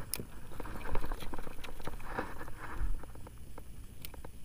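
Light, irregular clicks and knocks on a small wooden fishing boat, with water lapping against the hull.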